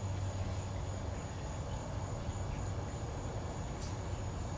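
Steady outdoor background: a constant high-pitched insect drone over a low hum, with one short tick near the end.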